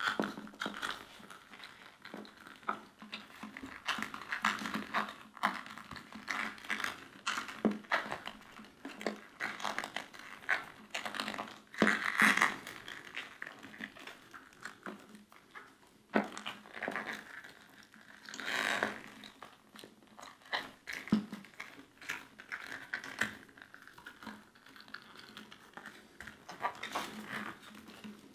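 Irregular rustling and small plastic clicks and knocks as hands push wiring-harness connectors into rubber grommets behind a motorcycle's front fairing, with louder rustles about twelve seconds in and again near nineteen seconds.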